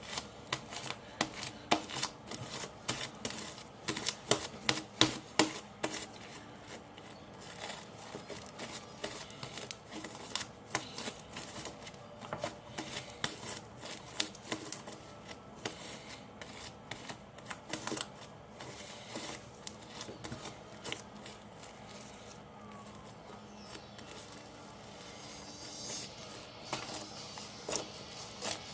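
Hands kneading fluffy slime made from glue, shaving cream and borax: a run of irregular sticky clicks and pops, thickest in the first few seconds and again near the end.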